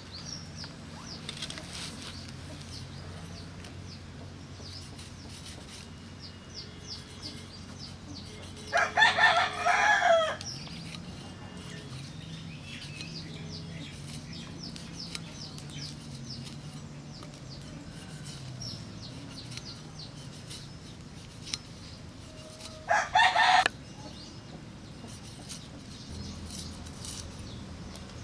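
A rooster crowing: one long crow about a third of the way in and a shorter call later, with small birds chirping faintly throughout.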